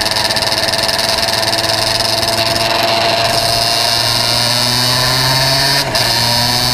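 Two-stroke kart engine running at high revs, heard from on board the kart: a loud, steady buzz with a brief dip about six seconds in.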